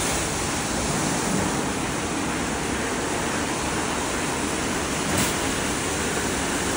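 WashTec gantry car wash running its wash cycle: water spraying and rotating brushes working over the car in a steady rushing noise, with one brief knock about five seconds in.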